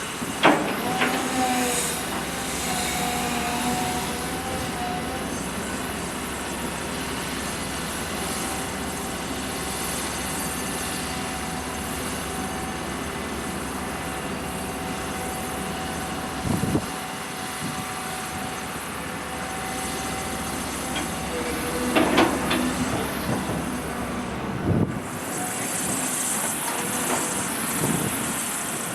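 Heavy earthmoving machine at work, its engine running steadily under load with a few sharp metallic clanks: one near the start, then several over the last third. Near the end the low rumble drops away and a hiss takes over.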